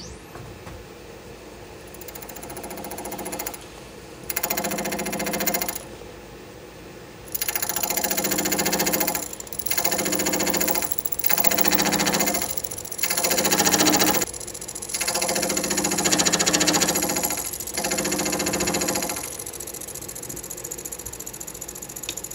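A 3 mm slitting saw on a milling machine cutting a 120 thou slot into the end of a small aluminium part. The spindle runs steadily with a thin high whine, and the saw bites in about seven loud bursts of a second or two each, the cutting pitch rising over the running noise. The cutting stops a few seconds before the end.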